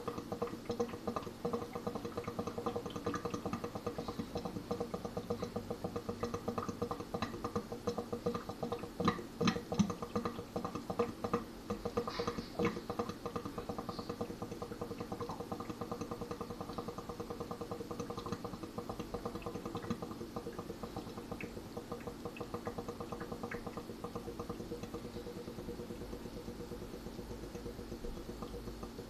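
Stainless steel sink drain gurgling as soapy water slowly drains, a fast, even pulsing suck with louder pops about a third of the way in.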